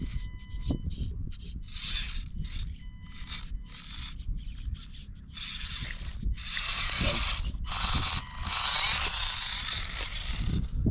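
Axial SCX24 micro RC crawler's small electric motor and gearbox whirring in short stop-start bursts of throttle. The bursts grow longer and louder from about halfway through.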